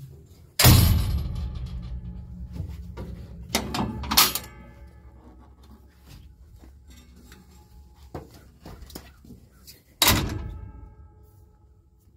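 Heavy metal access door on a mining excavator slamming shut twice, each bang ringing on for a second or two, with lighter metallic knocks and clanks in between.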